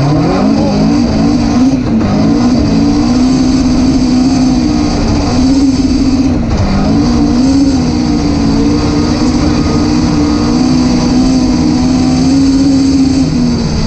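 Rally car engine running hard at high revs, heard from inside the car. The pitch stays high and fairly steady, with brief dips in revs near the start and again about six seconds in.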